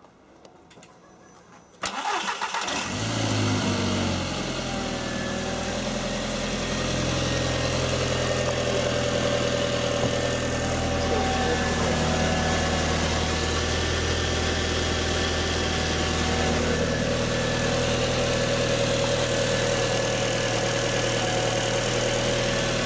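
Seat Leon's 1.8-litre 20-valve turbocharged four-cylinder engine cranking and catching about two seconds in, on its first start after a turbo rebuild. It runs at a raised idle for a few seconds, then settles into a steady idle that sounds healthy, with no sign of a broken turbo.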